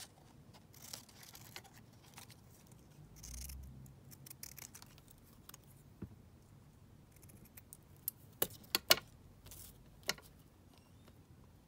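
Quiet snipping of scissors cutting a small paper word strip, with light paper handling. A cluster of sharp clicks comes about eight and a half to nine seconds in, and one more a second later.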